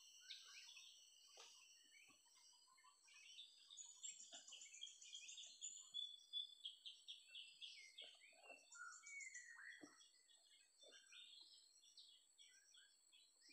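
Faint birdsong: many quick high chirps and short trills from small birds, with a few soft scratches or taps mixed in.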